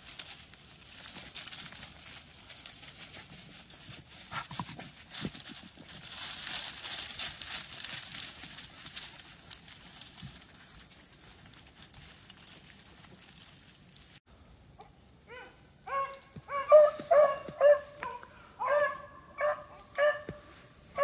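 Rustling and crackling of movement through snowy brush for the first dozen seconds or so. Then beagles start baying about fifteen seconds in, a run of loud, repeated pitched bays: the pack has jumped a rabbit and is running it.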